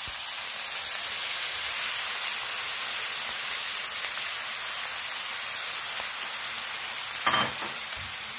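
Raw squid frying in hot oil in a pan, a steady sizzle and hiss of steam as the wet squid hits the oil. There is a short knock about seven seconds in.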